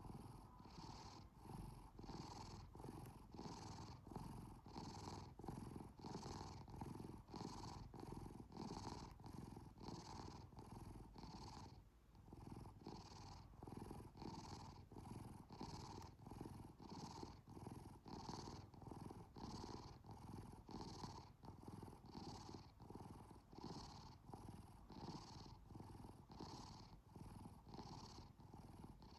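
Domestic cat purring steadily and softly in an even rhythm of breath cycles, about one and a half a second, with a brief pause about twelve seconds in.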